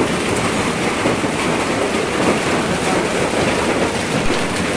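Hail coming down heavily: a dense, steady patter of ice pellets striking the street and nearby surfaces.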